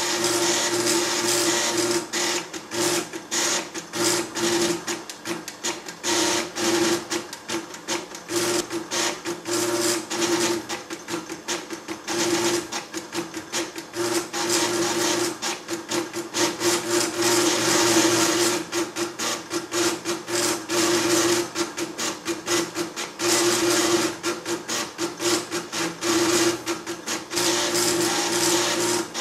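Calcomp 565 drum plotter drawing: its stepper motors drive the drum and pen carriage in rapid clicking runs. Longer runs merge into a steady pitched buzz, broken by short gaps and stretches of stop-start stepping.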